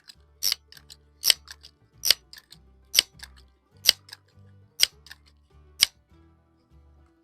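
Crosman 1322 multi-pump air rifle being pumped, its pump lever closing with a sharp click about once a second, seven strokes here out of a series of ten, charging it for the next shot.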